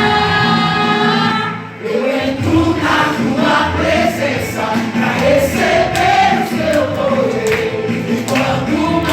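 Portuguese-language praise and worship song: a choir holds a long chord over the band, which ends about one and a half seconds in, then the singing starts a new phrase with drums beating.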